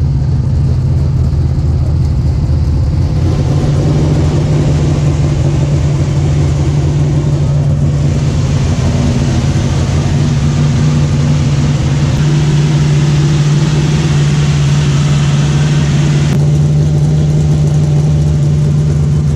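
Carbureted NASCAR V8 race engine idling steadily while it warms up from cold.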